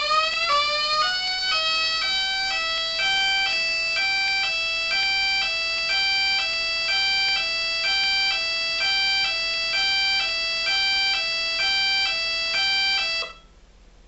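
Megablaster Jr., a homemade electronic mini tornado siren sounding through its speakers. It finishes winding up in pitch, then switches between a high and a low tone about once a second, and shuts off abruptly near the end.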